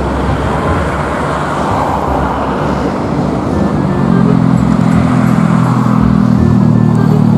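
Road traffic rushing past, then about halfway through a heavy vehicle's engine comes up close and holds a steady, even hum at one pitch.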